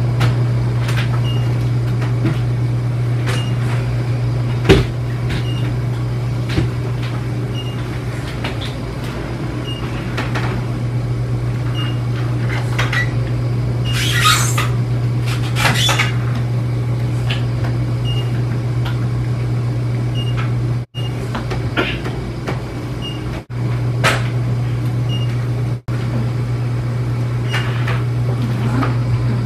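A steady low electrical machine hum with a faint tick about once a second, under scattered knocks and clicks from handling the bed and bedding, the sharpest about five seconds in, and a brief rustle in the middle.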